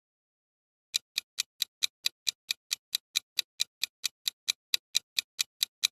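Quiz countdown-timer sound effect: a clock ticking evenly, about four and a half ticks a second, starting about a second in.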